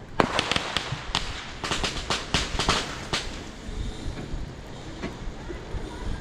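A string of firecrackers popping in a rapid, uneven run of about a dozen sharp cracks over the first three seconds, then stopping.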